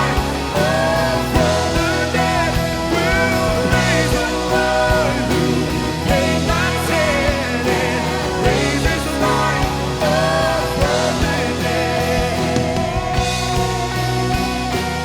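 Live worship band playing a rock-style instrumental passage, with drums keeping a steady beat and a melodic lead line winding over the chords.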